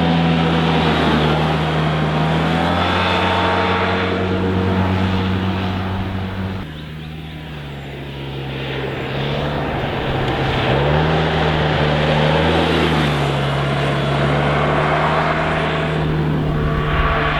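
Yamaha TMAX 530 maxi-scooter's 530 cc parallel-twin engine running on its stock exhaust at steady revs. The note drops and quietens suddenly about six and a half seconds in, then builds back up a few seconds later and holds steady again.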